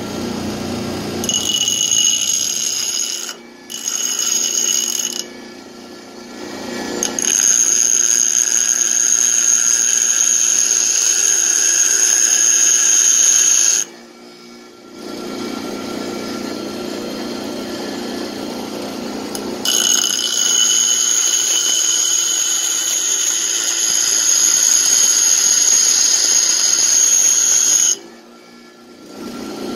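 Bench grinder running, with a brake shoe pressed against its wheel in several long passes: a high-pitched grinding whine over the motor's hum, easing back between passes. The new aftermarket brake shoes are being ground down to shape so they will fit.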